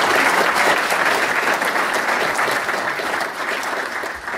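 Audience applauding, with many hands clapping together, growing gradually quieter toward the end.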